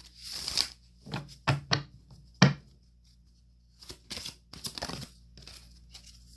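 A deck of oracle cards being shuffled and handled: a brushing swish, then a few short, sharp card snaps, the loudest about two and a half seconds in, and a few more softer ones later.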